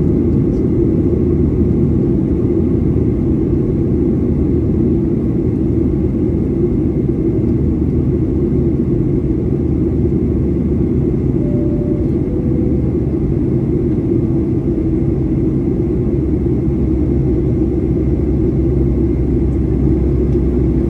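Steady cabin drone inside a Boeing 737-800 climbing out, its CFM56-7B turbofan engines and the airflow over the fuselage making a low, even rumble.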